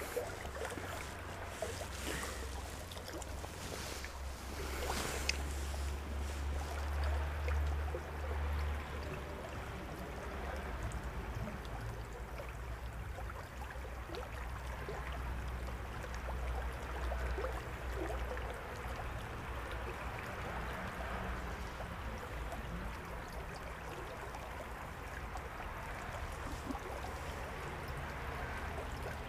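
Small shallow stream running steadily, a continuous rushing babble of water. A low rumble lies under it for roughly the first nine seconds, and there are a few sharp clicks in the first five seconds.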